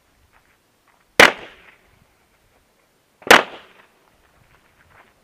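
Two handgun shots about two seconds apart, each a sharp crack with a short echo.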